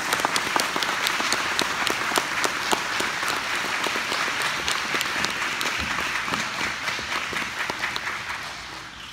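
Audience applauding, a dense spread of hand claps that dies away near the end.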